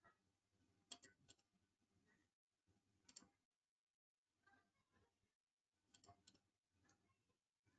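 Near silence, broken by faint computer mouse clicks in small groups of two or three, about a second in, about three seconds in and about six seconds in.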